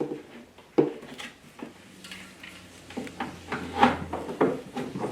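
Irregular small knocks, clicks and clinks of plastic toy parts and screw hardware being handled while the ride-on carriage is put together.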